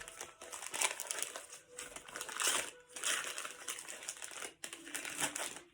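Wrapping paper rustling and crinkling in irregular bursts as a present is unwrapped by hand.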